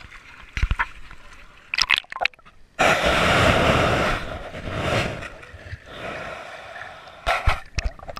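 Water sloshing and gurgling around a waterproof action camera as it is dipped below the surface in shallow water, with a loud rush of water about three seconds in lasting about a second. Scattered knocks and splashes from the camera bumping and breaking the surface come near the start and again near the end.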